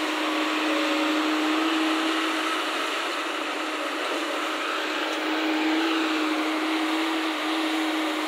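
JCB crawler excavator's diesel engine and hydraulics running steadily under load as the boom and bucket work, with a humming whine that swells a little twice.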